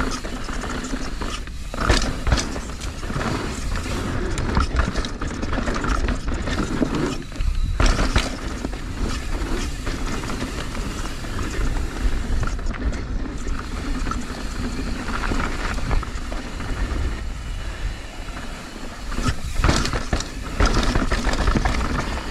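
Mountain bike ridden fast down a rough, rocky trail: continuous tyre and rattle noise with frequent sharp knocks from impacts, over a steady low rumble.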